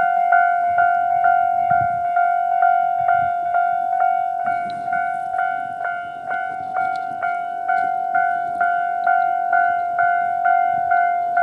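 Japanese electronic level-crossing warning bell in the standard Tobu Railway tone, ringing steadily about twice a second. Beneath it a Tobu 20400 series electric train rumbles through the crossing.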